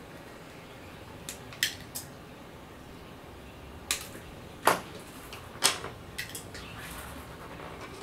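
Light sharp clicks and taps, about nine of them scattered irregularly, from a small circuit board and parts being handled and set down on a workbench; two louder clicks come near the middle.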